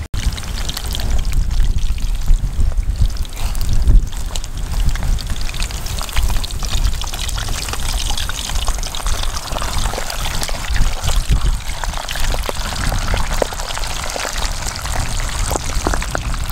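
Hot oil sizzling and crackling as a tied roll of pork belly deep-fries in a pot, over a low rumble.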